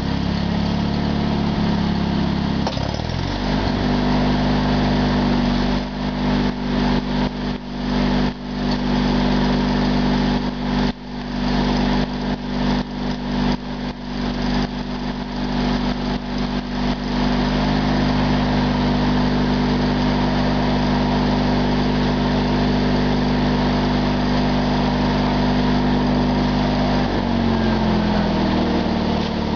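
Small engine running steadily; its pitch shifts up about 3 seconds in as it takes load and glides back down near the end. Through the middle comes the uneven crackle and sputter of a stick-welding arc burning a 7018 rod.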